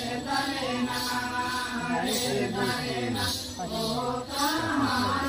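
Santali Karam dance song: a group singing in unison with drums and jingling bells keeping a steady beat.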